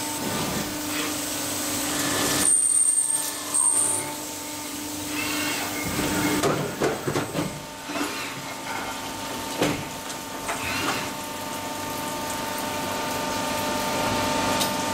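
Metal-working machine running on ribbed steel bars with a steady hum and whine, with scattered clatters and knocks in the middle of the stretch.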